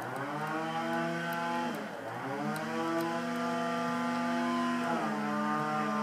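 Petrol engine of the neighbours' garden-cutting machine running. Its pitch climbs at the start, sags briefly about two seconds in and recovers, then shifts again near the five-second mark. Faint metallic ticks of a lock pick working in a wafer lock sound at a few points.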